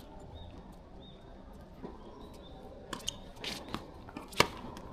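Play on an indoor sports court: short shoe squeaks on the floor, then a run of sharp hits, the loudest about four and a half seconds in.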